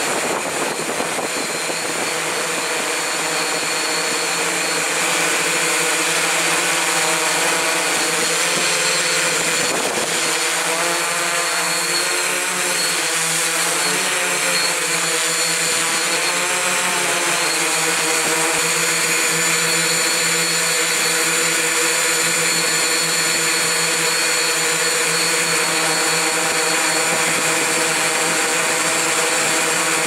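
Multirotor drone's motors and propellers whining steadily over a broad rushing hiss, several pitches that waver up and down for a few seconds about a third of the way in, then settle.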